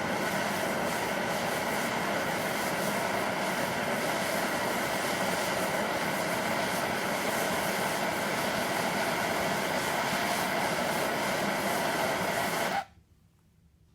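Handheld propane torch burning with a steady hissing flame, shut off suddenly near the end.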